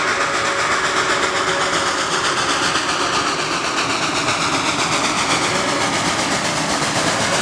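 Reading & Northern 425, a 4-6-2 Pacific steam locomotive, approaching under steam. Its exhaust and running gear make a loud, steady rush that holds throughout as the engine closes on the listener.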